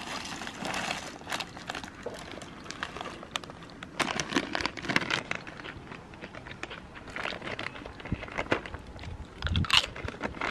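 Crinkling of a plastic food packet as dry food is poured out, then crunchy snack being bitten and chewed close to the microphone, with irregular crackly crunches. The loudest crunch comes near the end.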